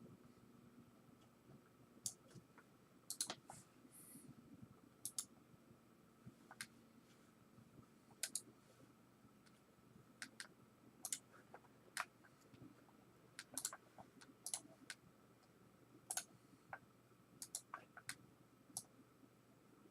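Faint, irregularly spaced clicks of a computer mouse and keyboard, about one a second, some in quick pairs, over a quiet room.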